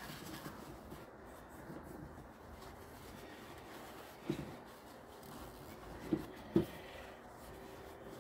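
Cloth rubbing and wiping inside a brake caliper's piston bores as the caliper is handled, with three short, light knocks in the second half.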